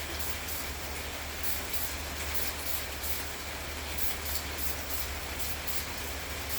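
Aerosol spray paint (VHT Roll Bar & Chassis) hissing from the can in short, uneven spurts over a steady low rumble.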